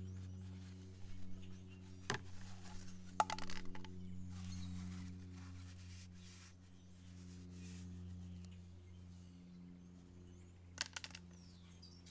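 A few light clicks and knocks as the generator's oil-fill area is handled: one about two seconds in, a quick cluster a second later, and a pair near the end. Under them runs a faint steady low hum, with faint bird chirps.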